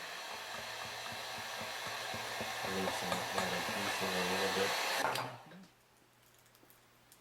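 Heat gun running steadily, blowing hot air to soften the screen's thermal adhesive; it cuts off suddenly about five seconds in.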